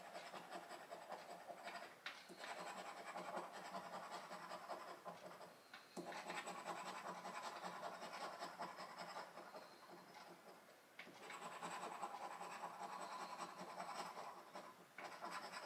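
Scratching the coating off a paper lottery scratchcard, in several long runs of scraping with brief pauses between them.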